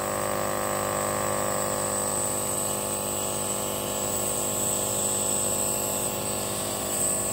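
Compact compressor nebulizer running: a steady electric motor hum with a high hiss over it, driving air through the tubing to make medication mist in the face mask.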